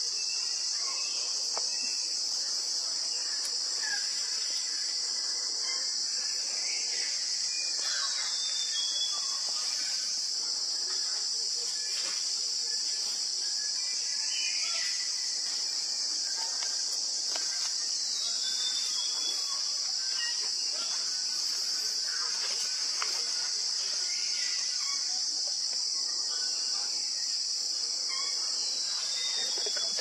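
Steady high-pitched drone of rainforest insects, with scattered short bird calls rising and falling over it.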